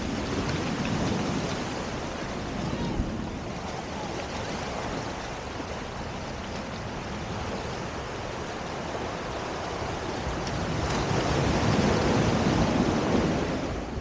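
Ocean surf washing onto a beach, a steady rushing noise that swells louder about eleven seconds in.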